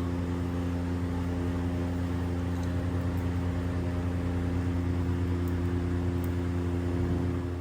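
A motor or engine running steadily: a constant low hum with a few steady tones over a rushing noise.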